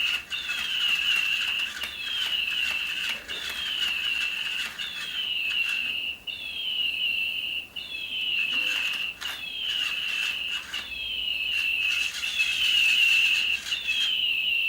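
Battery-powered toy bird chirping on a loop: the same short falling whistle, settling into a held high note, repeats about once a second.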